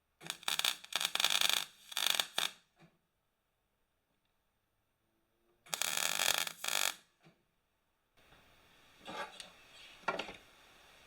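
Two loud bursts of harsh hissing and scraping from work on steel, each lasting a second or two, then a faint steady hum with two softer scrapes near the end.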